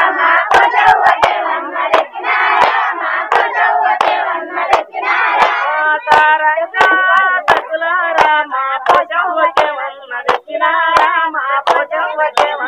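Group of women singing a folk song together while clapping their hands in a steady rhythm, about two to three claps a second.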